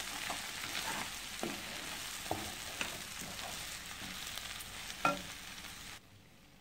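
Tendli (ivy gourd) pieces sizzling in a nonstick kadai while a wooden spatula stirs through them, with a short scrape or knock against the pan about once a second as the dry coconut masala powder is mixed in. The sizzle cuts off suddenly near the end.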